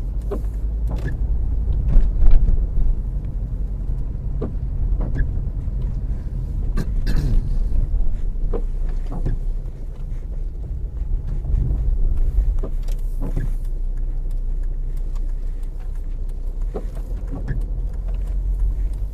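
Inside a car moving slowly on a wet road: low engine and tyre rumble over the hiss of wet tarmac, with scattered knocks and clicks and a louder knock about two seconds in.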